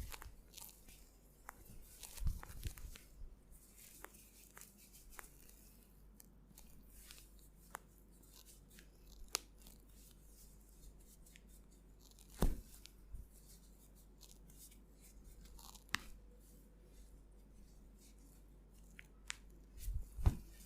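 Hands massaging skin: quiet rubbing with scattered small clicks and a few short dull thumps, the loudest about halfway through and a couple near the end.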